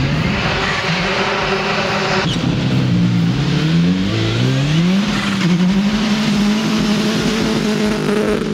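A Prodrive-built 2.0-litre turbo Subaru Impreza rally car and a Ford Focus RS accelerating hard through the gears in a side-by-side drag race. The engine notes climb in pitch and drop back at each upshift, then hold a steady high note for the last three seconds.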